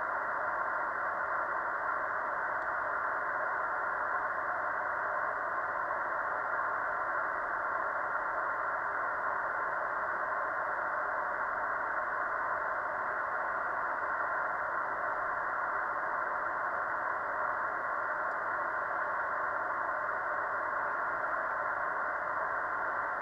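Steady receiver hiss from the Kenwood TS-930S HF transceiver, held to a narrow band of mid pitches as through the radio's audio filter, with a few faint steady tones in it.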